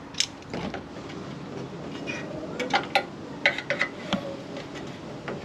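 Hard plastic clicks and rattles from a turn signal light housing being worked by hand as its retaining clips are pushed out: a string of sharp clicks, most of them bunched past the middle.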